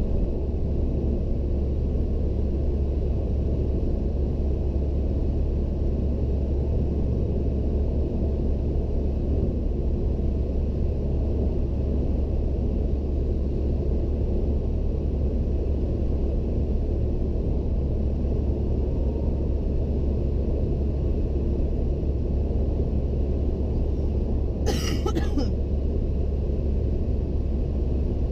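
Steady road and engine rumble heard inside a car cruising on a motorway, heaviest in the deep bass. A brief sharp noise cuts in about three seconds before the end.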